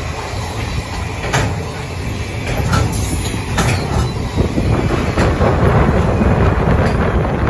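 Container wagons of an intermodal freight train rolling past close by: a steady rumble of steel wheels on the rails with scattered sharp clicks, getting louder in the second half.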